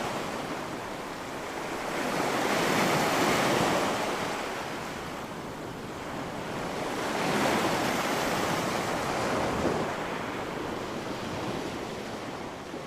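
Sea waves breaking on a beach close to the microphone: two swells of surf build and wash in, a few seconds in and again past the middle, with a steady hiss of water between them.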